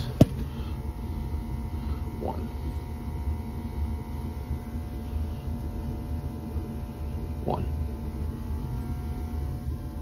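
Steady low rumble and hum of a running Burnham IN4 gas-fired steam boiler, with one sharp click just after the start.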